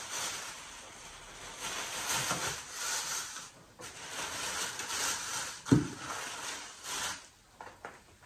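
Thin plastic grocery bags rustling and crinkling as items are pulled out of them, with one sharp thump a little before six seconds in as something is set down on the table.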